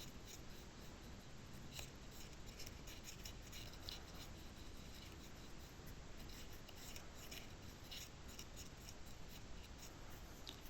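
Faint, light scratching and rubbing as the dirty electrical contacts of a heater blend door actuator are rubbed clean, in short irregular strokes.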